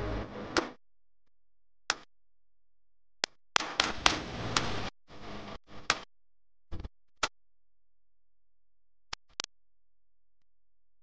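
Short snatches of background music that cut in and out abruptly, with dead silence between them, and a few sharp clicks scattered among them.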